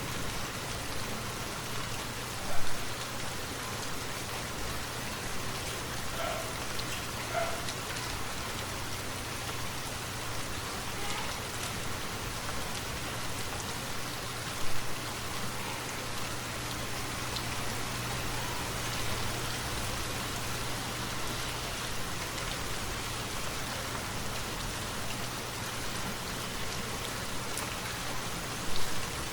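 Steady rainfall, an even hiss of drops. Three times, a single brief tap or drop sounds much louder and closer.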